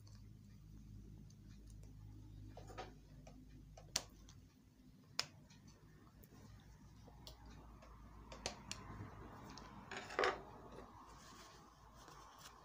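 Scattered light metal clicks and taps from sewing machine parts being handled and fitted by hand. The loudest comes about ten seconds in, over a faint low hum.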